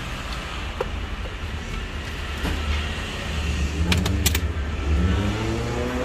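Sharp plastic clicks of car wiring-harness connectors being handled, one just under a second in and a quick cluster about four seconds in, over a steady low rumble.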